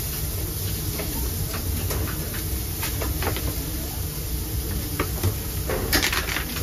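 Light clicks and taps of metal tongs and utensils against steel food trays, over a steady low background rumble, with a burst of sharper clicks near the end.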